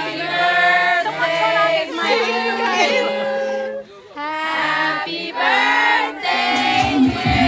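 A crowd of adults and children singing a birthday song together in unison, with held notes and a short breath about halfway through.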